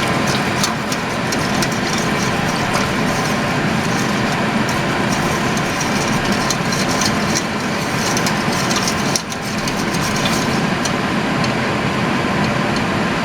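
Spoon scraping and ticking in a pot as flour is stirred into canning liquid, over a steady loud mechanical hum. The hum dips briefly about nine seconds in.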